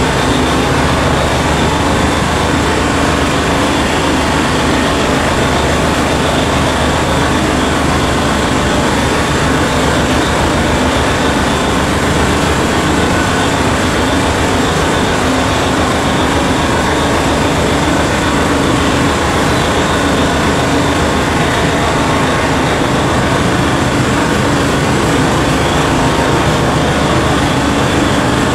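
Steady, loud mechanical din of heavy mining machinery at work: a CAT 7495 electric rope shovel loading a large haul truck with its engine running.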